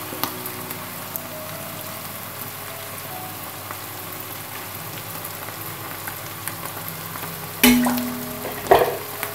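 Raw chicken pieces sizzling softly in hot oil with fried onions and mushrooms in a pan, with small crackles. Near the end come two louder knocks about a second apart as more chicken is tipped into the pan from a bowl.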